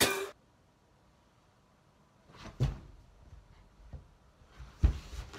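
A brief retching noise over a toilet at the very start, then a dead-silent gap, then a few soft thumps and knocks from the camera being handled up close, the loudest near the end.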